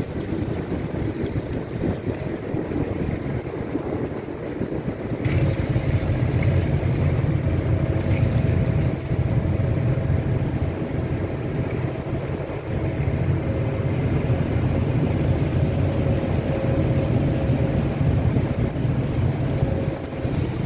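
Wind buffeting the microphone over the steady low rumble of a ship's engine under way. About five seconds in, the rumble steps up louder and a steady humming tone comes in and holds.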